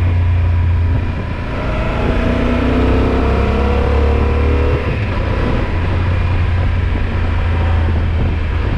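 Yamaha XT1200Z Super Ténéré's parallel-twin engine running under way, heard from the rider's seat with wind rush over it. It eases briefly about a second in, then pulls again with its pitch rising.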